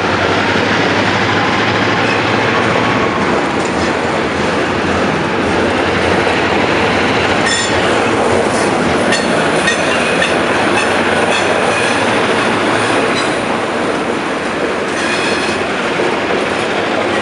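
EMD GP-9 diesel locomotive with its 16-cylinder two-stroke engine running under power as it moves along the track. From about halfway in, steel wheels squeal against the rails several times.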